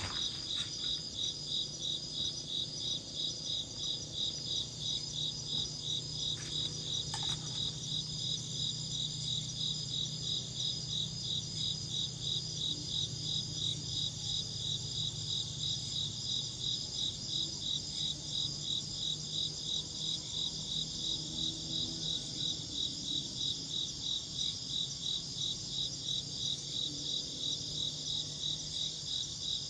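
Insects chirping in a steady, evenly pulsed high-pitched chorus that keeps the same rhythm throughout, with a faint low hum beneath.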